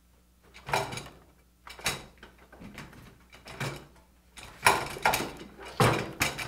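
A string of irregular knocks and clunks, about eight of them, the loudest in the second half: things being handled, like a door or a drawer in a small room.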